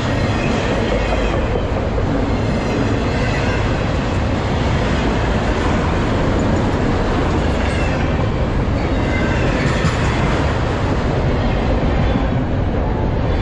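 Freight train's autorack cars rolling past close by at speed: a loud, steady rumble of steel wheels on the rails.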